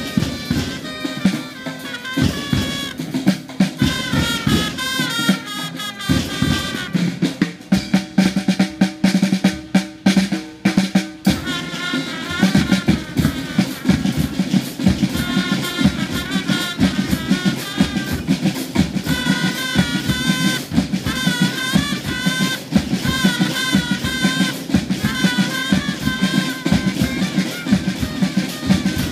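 School marching band playing: snare and bass drums keep a busy beat with rolls under a melody on wind instruments. A lower note is held for a few seconds about seven seconds in.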